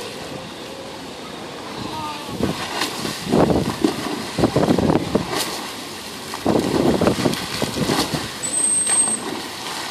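Bottlenose dolphin splashing hard through shallow water in two long bursts of churning and spraying, the second as it leaps clear and falls back. A short, high, thin whistle sounds near the end.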